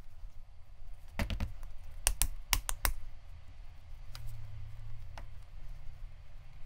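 A ball of soft air-dry terra cotta clay being patted and pressed between the palms into an egg shape: a run of sharp taps about a second in and again between two and three seconds in, with a couple of fainter ones later.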